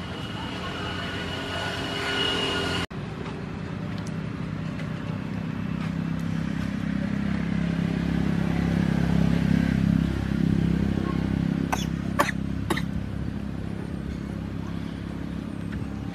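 A motor vehicle's engine running with a steady low hum that swells to its loudest about two-thirds of the way through, then eases off. A few sharp clicks come shortly after the peak.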